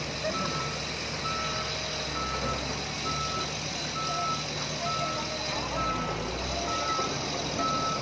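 A heavy machine's reversing alarm beeping steadily, about once a second, over the low hum of diesel engines running.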